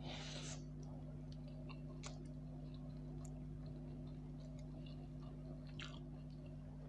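A short slurp of noodles at the start, then soft chewing with scattered small wet mouth clicks, over a steady low hum.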